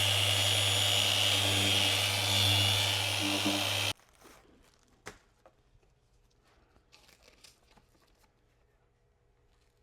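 Handheld electric power tool running steadily with a high whine, switched off abruptly just under four seconds in. Afterwards come a few faint clicks and handling sounds.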